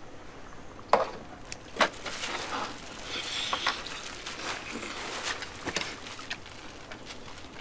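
A man eating Korean boiled chicken (baeksuk) off the leg bone: a couple of sharp clicks, then irregular biting and chewing sounds.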